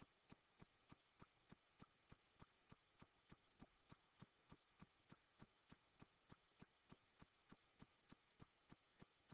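Near silence, with a faint regular ticking about three times a second.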